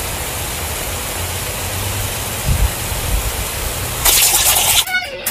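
Lawn sprinkler head spraying a jet of water, a steady hiss that turns louder for a moment about four seconds in.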